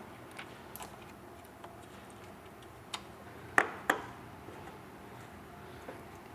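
A few scattered sharp clicks and knocks of hand tools on a 10 mm bolt at the top of a headlight assembly. The two loudest come close together a little past halfway.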